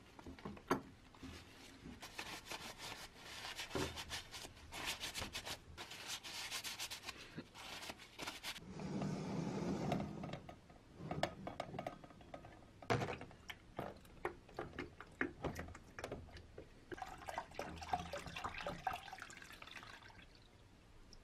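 Small steel trap parts and wire handled and rubbed on a bench, with many light clicks and knocks. Near the end, liquid nickel electrolyte is poured from a jug into a plastic tub, splashing and foaming for a few seconds.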